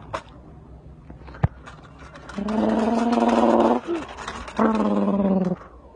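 A person imitating a truck engine with their voice: two long, steady droning notes, the first about a second and a half long and the second about a second, after a single sharp knock about a second and a half in.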